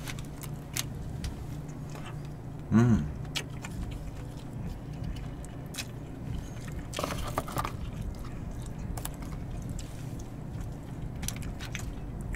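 Quiet table sounds of people eating with chopsticks: scattered light clicks of chopsticks against dishes and soft chewing. About three seconds in there is a brief hum from a voice, and a short crinkly rustle comes around seven seconds in.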